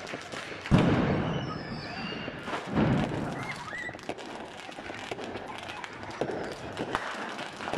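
Fireworks and firecrackers going off in a street: two loud booms, one about a second in and another just under three seconds in, over rapid crackling that keeps on throughout, with a few short high whistles between the booms.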